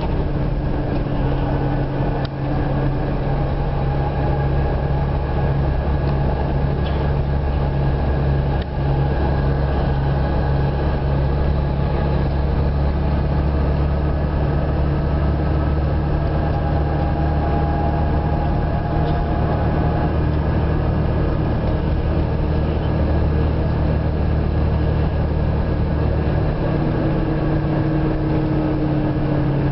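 Boat engine running steadily, a deep drone with a steady hum; a faint higher whine holds through the middle, and the deepest part of the rumble drops away near the end.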